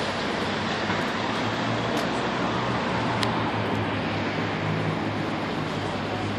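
City street traffic noise: a steady wash of passing vehicles, with a low engine hum from a nearby vehicle growing stronger in the second half.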